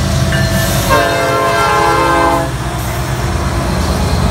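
Norfolk Southern diesel freight locomotives passing close by with a steady low rumble of engines and wheels on rail. About a second in, a locomotive air horn sounds one held blast of several notes together, lasting about a second and a half.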